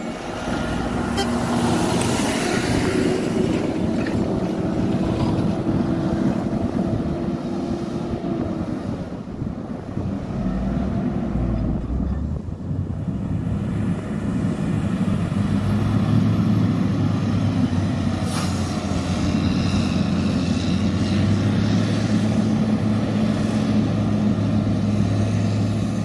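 Motorcycle engine running while riding along a road, a steady hum whose pitch drops about eight seconds in and holds lower later, with wind and road noise.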